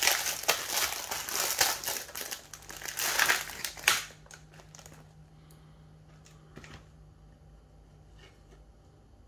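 Cookie packaging crinkling and crackling as it is opened and handled; it stops about four seconds in, leaving only a few faint clicks.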